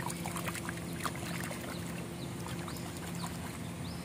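Water splashing and dripping as a hand swishes a muddy fiddler crab in shallow ditch water to rinse it, with many small plinks of droplets.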